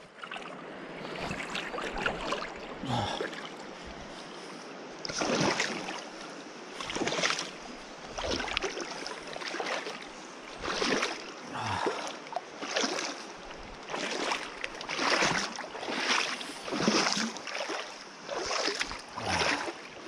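A person wading out of a shallow river: water splashing and sloshing in uneven bursts every second or two over the steady rush of the flowing river.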